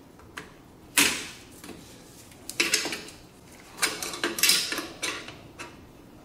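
Metal clinks, clicks and scrapes of drum brake shoes and spring hardware being handled and adjusted on the backing plate. A sharp clank rings briefly about a second in, followed by several clusters of quicker clicks and rattles.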